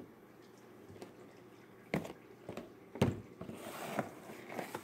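Hand on a wooden tabletop: two sharp taps about a second apart, then soft rubbing and handling noise.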